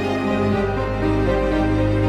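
Background music of slow, held chords that change about half a second in and again near the end.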